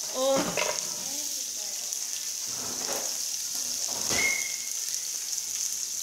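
Sliced onion sizzling as it fries in a nonstick pan, a steady high hiss, with three or four short knocks scattered through it.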